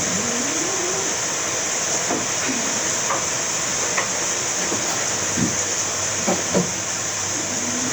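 Steady hiss of background noise, with a few faint clicks and short low pitch glides over it.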